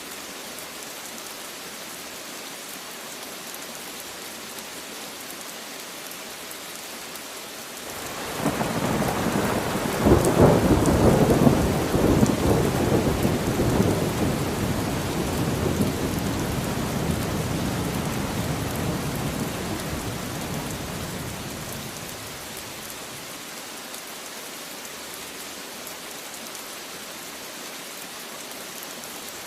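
Steady rain falling, with a long roll of thunder that swells in about eight seconds in, peaks a few seconds later and rumbles away over about ten seconds.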